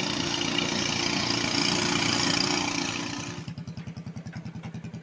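Ryu 18 hp racing-boat engines running hard at high revs, then, after a sudden cut about three and a half seconds in, a small single-cylinder boat engine idling with an even, quick thumping of about eight beats a second.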